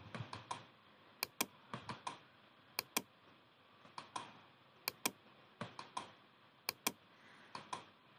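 Computer mouse clicking quietly: four sharp double clicks about every two seconds, with softer clusters of two or three clicks between them.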